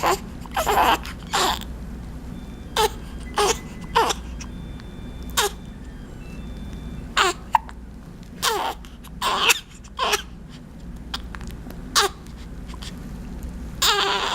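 Baby hiccupping: about a dozen short hiccups at irregular intervals of one to two seconds, some longer and louder than others.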